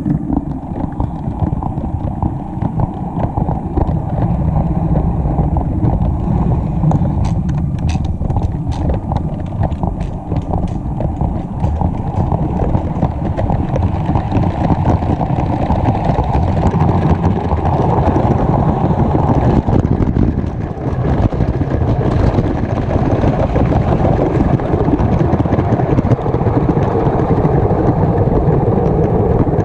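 LEGO train running along plastic track, heard from a camera riding on board: a continuous dense rattle of wheels clicking over the track joints and sleepers over a rumbling drone, with a run of sharper clicks about a quarter of the way in.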